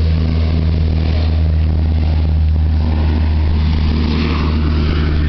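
Steady propeller drone of a low-flying Canadair-type amphibious firefighting water bomber passing by.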